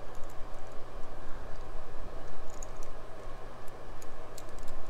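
A few light metallic clicks and taps as small steel tooling is handled and fitted at a lathe's tailstock turret, over a steady low hum.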